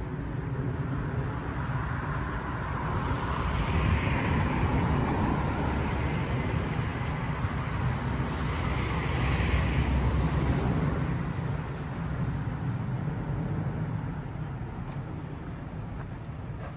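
Road traffic passing close by: a steady rumble with vehicles swelling past twice, about four and ten seconds in, then easing off.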